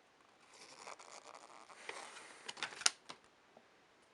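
A paper pamphlet rustling as it is handled and unfolded: a soft rustle, then a few sharper crinkles and crackles about three seconds in.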